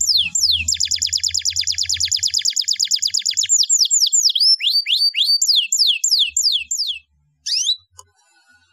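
Domestic canary singing: a run of quick downward-sweeping whistled notes, then a fast, even rolling trill for about three seconds, then more downward sweeps. The song breaks off about seven seconds in, with one short phrase just after.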